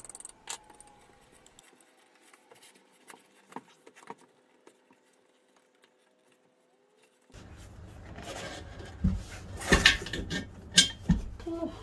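Motorcycle tyre being worked off its wheel rim by hand: faint rubbing and light clicks at first, then rubber scraping against the rim with several sharp metallic knocks and clicks over the last few seconds.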